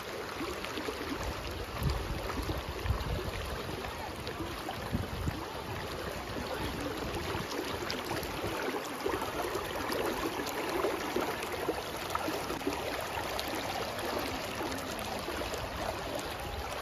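Shallow, fast river water rushing over stones and pebbles, a steady wash of noise, with splashing as a person wades knee-deep through the current.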